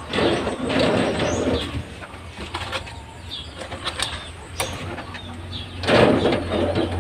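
Rustling and a few light knocks as eggs are set onto the wooden shelves of a homemade incubator, with birds calling in the background.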